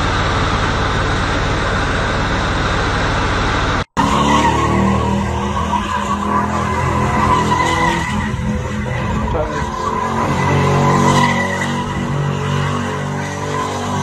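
Box Chevy on big rims spinning its tires on wet ground, a dense rush of engine and tire noise. After a sudden cut about four seconds in, another box Chevy doing a burnout: engine held at high revs under a steady tire squeal.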